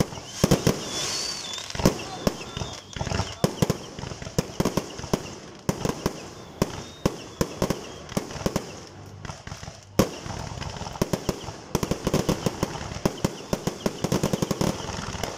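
A fireworks display: aerial shells going off in a rapid, irregular string of sharp bangs, over a steady hiss.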